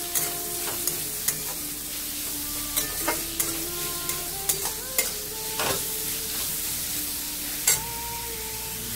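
Sliced onions frying in hot mustard oil in a metal kadai, sizzling steadily. A flat metal spatula stirs them, with repeated short scrapes and clinks against the pan. The onions are at the stage of being fried golden.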